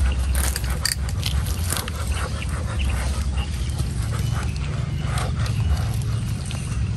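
Knife scraping and lifting grilled shrimp out of a charred watermelon shell onto a metal tray, with scattered clicks and scrapes, over a steady low rumble.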